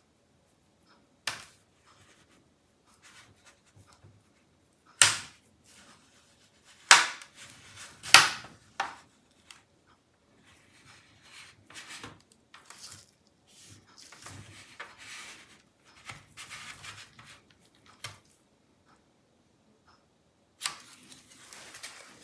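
Bottom panel of an Alienware 16X Aurora laptop being pried off with a plastic pry tool: its plastic clips snap loose in a handful of sharp clicks, the loudest about five, seven and eight seconds in, with quieter scraping and rubbing of the tool along the seam in between.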